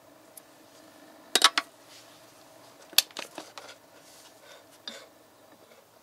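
Metal parts of a bench oil-film tester being handled: sharp metallic clinks and knocks, a cluster about a second and a half in, another around three seconds, and a last one near five seconds, over a faint steady hum.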